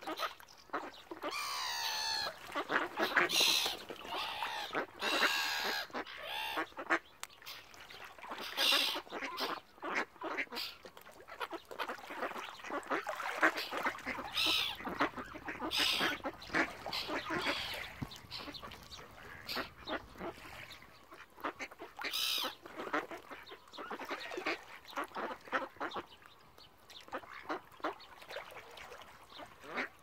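A flock of mallard ducks and other waterbirds calling over one another, a busy run of quacks and squawks that thins out near the end.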